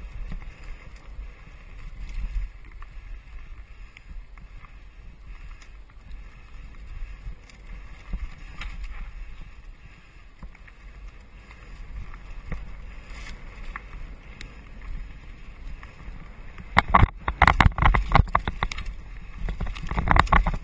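Mountain bike descending a dirt singletrack: a steady low rumble of wind on the microphone and tyres on the trail, with scattered small clicks and ticks. Near the end comes a run of loud, rapid clattering knocks as the bike rattles over rough ground.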